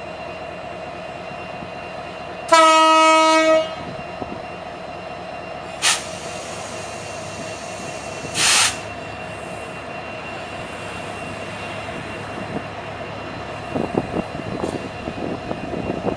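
CC 205 diesel locomotive sounding its horn once for about a second over the steady hum of its running engine. Two short bursts of hissing air follow, and near the end there is irregular knocking and clatter.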